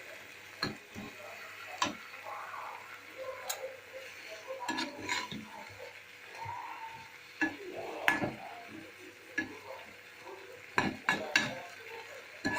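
A metal spoon scraping and clinking against a frying pan as the dry cauliflower Manchurian is stirred, in scattered irregular strokes, with a faint sizzle from the pan.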